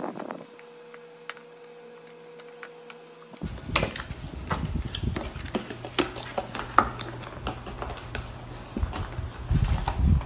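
Cardboard speaker packaging being handled and opened: paperboard sliding, rustling and tapping, with scattered sharp clicks. Quiet at first with a faint steady hum, then busier from about three seconds in and heaviest near the end.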